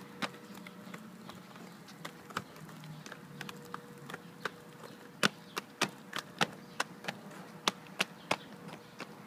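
Plastic wheels of child's quad roller skates clacking on a concrete sidewalk as the skates are set down step by step: sharp, irregular clacks a few times a second, louder from about five seconds in.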